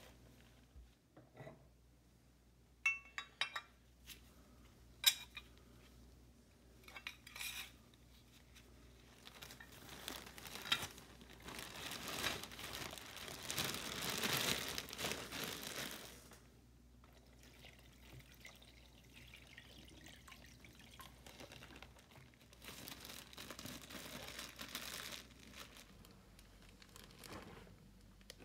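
Liquid poured into a plastic bag standing in a plastic tub, the pour loudest about midway and the thin bag crinkling as it is handled. There are a few sharp clicks and taps of plastic in the first five seconds, and a softer rustle and trickle near the end.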